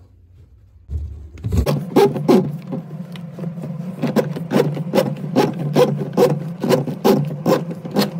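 Drum auger (drain snake) running its cable into a clogged sink drain: a steady hum starts about a second and a half in, with a regular knock about twice a second as the drum and cable turn.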